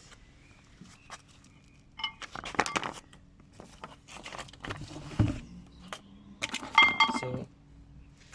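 Handling noise of metal objects: irregular clinking and rattling in two bursts, about two seconds in and again near the end, with a dull knock in between.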